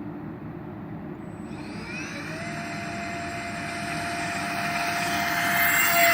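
Electric ducted fans of a model Airbus A320 airliner spooling up with a rising whine about a second and a half in, then holding a steady high whine that grows steadily louder toward the end.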